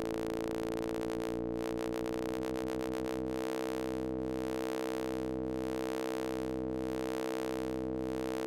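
Synthesized test tones from Max MSP: a steady electronic hum of several held pitches. Its fast flutter slows and shifts about two seconds in, then settles into a slow, even pulsing.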